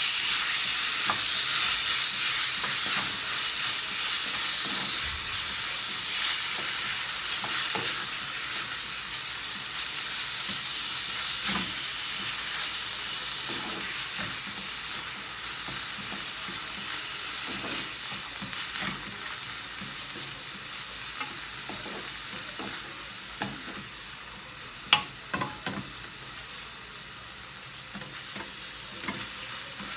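Sliced pork with onion and garlic sizzling in a nonstick frying pan as it is stirred with a wooden spatula that scrapes and taps the pan now and then. The sizzle slowly fades because there is only a little oil in the pan, and there is one sharper knock a little before the end.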